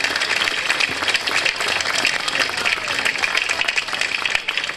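Many people applauding, a dense, steady clapping.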